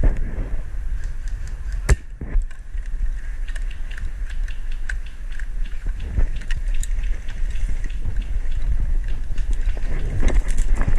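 Wind and movement rumbling on a body-worn camera's microphone, with scattered sharp clicks and knocks, the loudest about two seconds in.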